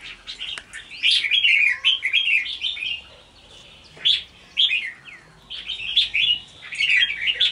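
Red-whiskered bulbuls chirping and singing in short, quick phrases, coming in several bursts with brief pauses between.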